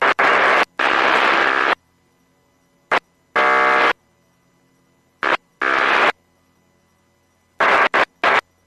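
Marine VHF radio scanner audio: a string of short bursts of static and garbled signal that cut in and out abruptly, as the squelch opens and shuts, with silent gaps between them.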